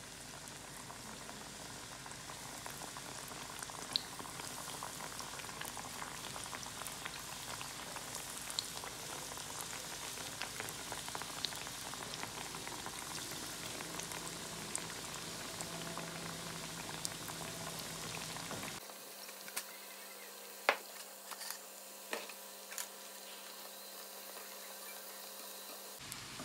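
Pieces of yeast-free dough deep-frying in hot oil in a pan: a steady bubbling sizzle scattered with sharp crackles. About two-thirds of the way through it drops quieter, with a few louder pops.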